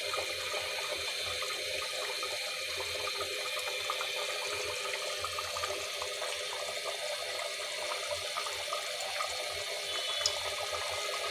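Chicken curry simmering in an open aluminium pressure cooker: a steady hiss with many small bubbling pops.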